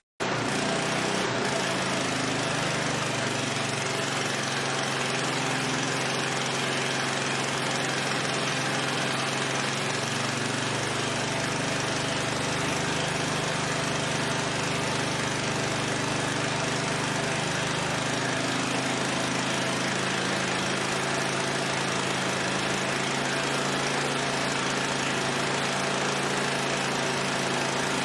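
13 HP Honda single-cylinder engine running steadily at constant speed on wood gas, driving a generator.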